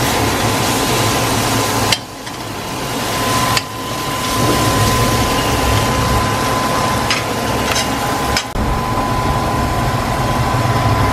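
Steady stir-fry noise from a wok on a gas stove: a constant hiss with a low hum underneath. It breaks off abruptly three times, about two, three and a half and eight and a half seconds in.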